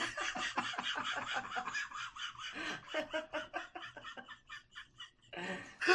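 Breathy laughter in quick pulses, several a second, dying down and then rising again near the end: a person laughing at a joke's punchline.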